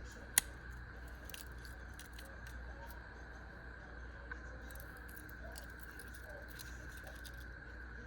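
Faint handling clicks and light rustling over a steady background hum, with one sharp click about half a second in.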